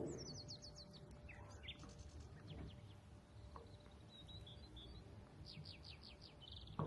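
Faint bird chirps: a quick run of short, high, falling notes near the start, a brief trill midway, and another quick run near the end.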